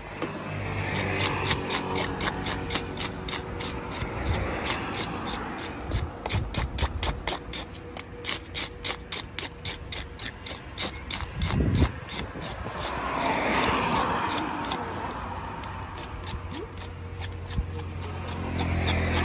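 Large knife scraping the scales off a tilapia on a wooden chopping stump, in quick, even strokes about four a second.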